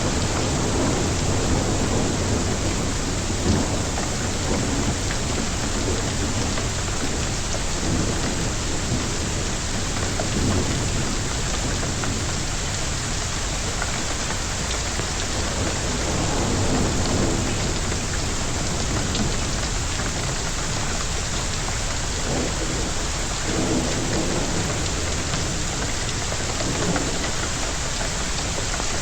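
Hailstorm with heavy rain pelting down steadily, thunder rumbling through it in swells, and one sharp hit about three and a half seconds in.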